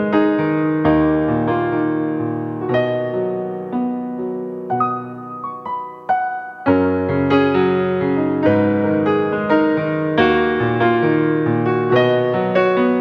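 Piano music: notes and chords struck at a steady pace, thinning out and softening for a moment about five seconds in, then picking up again.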